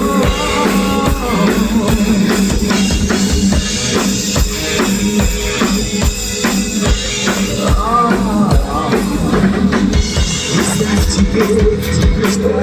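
Rock band playing the instrumental intro of a song, with the drum kit keeping a steady beat under pitched instruments.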